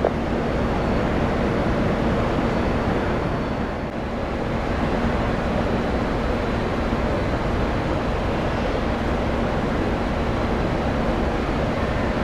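Steady roar of airliner jet engines at an airport, with a faint whine held through it.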